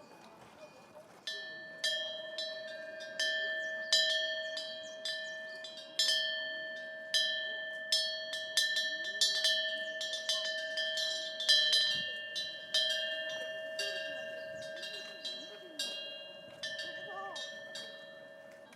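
Korean wind bell (풍경) ringing as its clapper swings, struck at irregular intervals of roughly a second. Each strike sets the same few ringing tones going, and they fade slowly. The ringing starts about a second in and dies away near the end.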